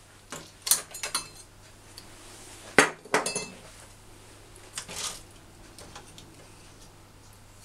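Hands working a Brother domestic knitting machine: a handful of short, sharp metallic clicks and clinks at irregular intervals, the loudest about three seconds in.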